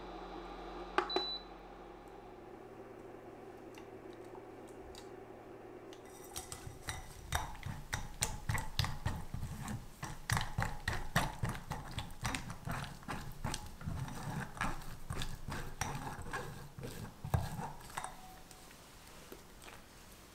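Silicone spatula pressing and scraping thick orange pastry cream through a fine metal mesh sieve into a glass bowl: a long run of quick soft scrapes and taps, with a louder knock near the end. About a second in there is a single sharp clink of kitchenware.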